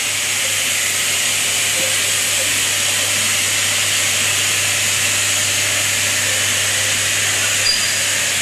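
Steady shop machinery noise: an even hiss with a low hum underneath, unchanging throughout, and one short high beep about three-quarters of the way through.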